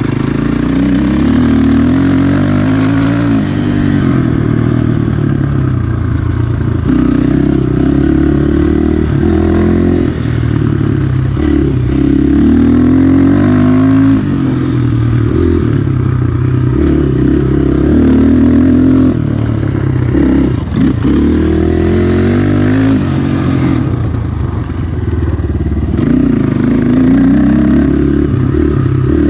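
Orion RXB250 dirt bike engine under way, its pitch climbing and dropping back over and over as the throttle is worked and the gears change.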